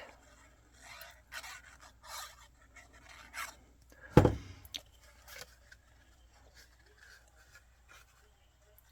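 Cardstock paper being handled and folded by hand: light, scattered rustling and scraping, with one sharp tap about four seconds in.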